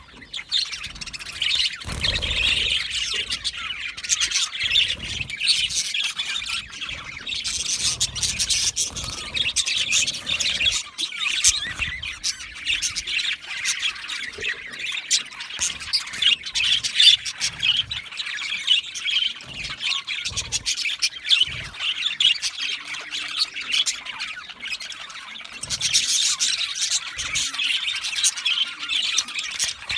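A flock of budgerigars chattering, with a continuous stream of warbling chirps and harsh squawks that overlap one another.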